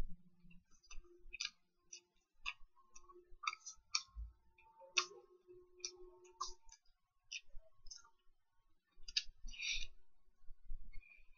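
A person chewing a chili cheese pretzel dog close to the microphone: irregular wet mouth clicks and smacks, with a denser cluster near the end as another bite is taken.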